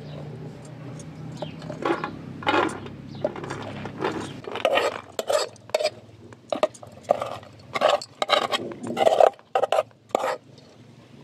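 Serving spoon scraping and knocking against a metal pot as cooked rice is scooped out and dropped onto a large metal tray: a run of short clinks and scrapes, busiest in the second half, over a faint steady low hum.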